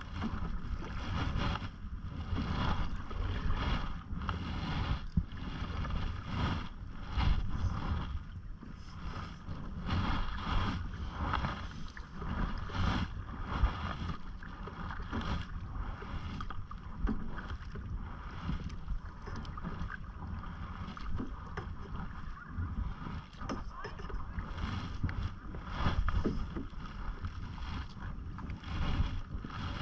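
Canoe paddle strokes in lake water: splashing and dripping as the paddle dips and lifts, over a low wind rumble on the microphone.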